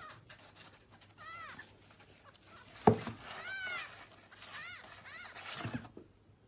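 A kitten mewing: about six short, high mews that rise and fall in pitch, coming in pairs. A sharp knock about three seconds in is the loudest sound, and a softer thump comes near the end.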